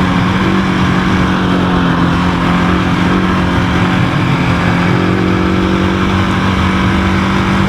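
GasGas ES700 single-cylinder four-stroke dual-sport motorcycle engine running under way at a steady pitch, holding an even speed on the trail.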